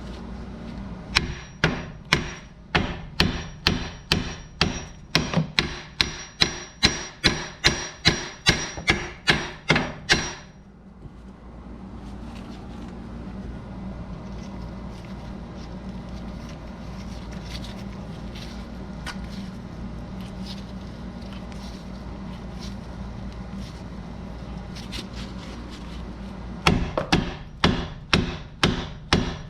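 Hammer blows on a castle nut threaded back onto the end of a rusted CV axle, driving the axle shaft out of the wheel hub. The blows come at about three a second for roughly ten seconds, stop for a long pause, then start again near the end.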